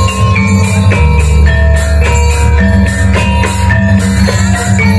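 Loud kuda lumping dance accompaniment music played through a sound system: a steady beat of high, evenly spaced percussion strikes, about three a second, over heavy bass, with a melody of held pitched notes.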